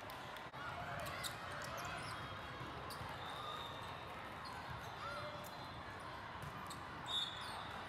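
Ambience of a crowded volleyball tournament hall: many voices chattering and calling out, volleyballs being hit, and short shrill squeaks now and then, the loudest near the end.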